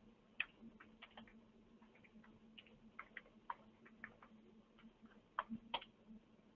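Faint computer keyboard typing: irregular key clicks, with two louder clicks about five and a half seconds in, over a faint steady low hum.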